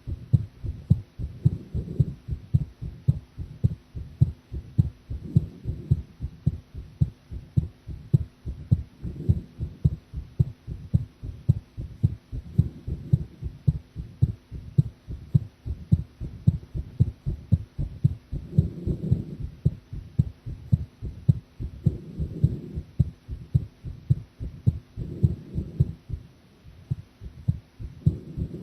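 A woman's heartbeat heard up close: a steady, regular run of low lub-dub thumps, with a softer swell every three or four seconds.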